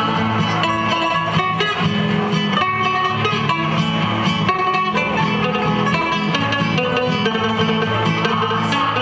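Live folk dance music from a small ensemble of plucked string instruments, guitars among them, playing a steady run of quick plucked notes over a bass line.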